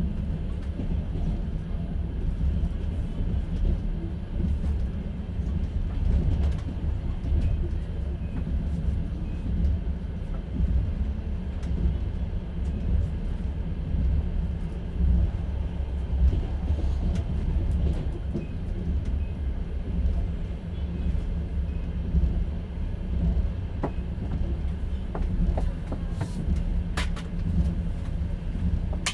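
Inside a moving platskart sleeper carriage: the steady low rumble of the train's wheels running on the rails, with a few sharp clicks and knocks near the end.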